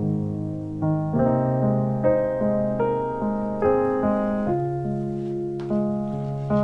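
Background piano music: a slow melody, a new note about every half second, over held low notes.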